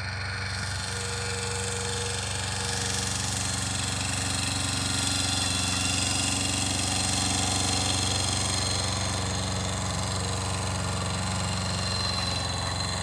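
Kubota B5000 compact tractor's two-cylinder diesel engine running steadily under load as it pulls a plough through the soil. It grows a little louder in the middle.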